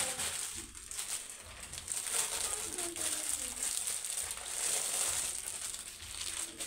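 Clear plastic packaging crinkling and rustling as a folded garment is handled and pulled out of its bag.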